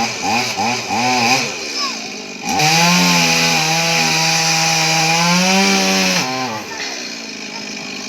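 Two-stroke chainsaw revved in quick throttle blips, then held at full revs for about four seconds while cutting through tree wood, before dropping back to idle.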